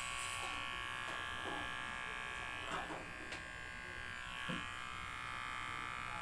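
Electric hair clipper running with a steady buzz.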